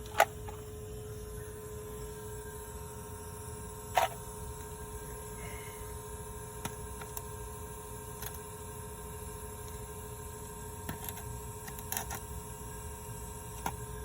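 Steady hum from a running automotive smoke machine pushing smoke into the engine's intake, with two sharp handling clicks, one about a quarter second in and one about four seconds in.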